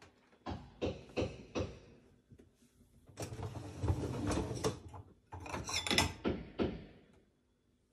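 Dishwasher wire racks being handled: a few light knocks, then the racks sliding along their rails twice, the second time with a rattle.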